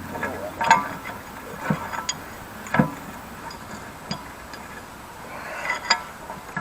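Rusty forged post vise being worked by hand as its screw is backed out: irregular metal clicks and clunks, about half a dozen, some ringing briefly.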